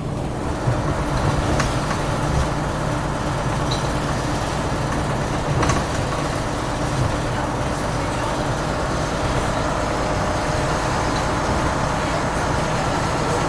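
DAF MB 200 bus's diesel engine running steadily while the bus is under way, with a few faint clicks and rattles.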